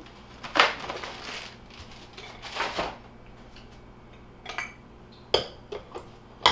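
Kitchen counter handling sounds while cooking: two short noisy rustles, then several sharp knocks and clicks of pans and utensils, the loudest at the very end.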